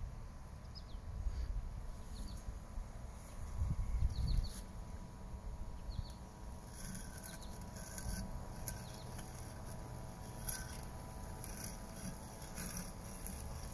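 Husqvarna Automower robotic lawn mower running across grass with a faint steady hum, under a gusty low rumble. Short high bird chirps come a few times in the first half.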